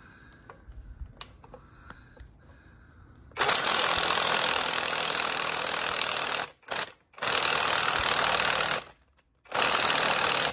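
Cordless impact wrench hammering through a long socket extension, running down bolts on an engine, in three bursts with brief pauses: the first about three seconds long, then a short blip, a longer burst and a final short one.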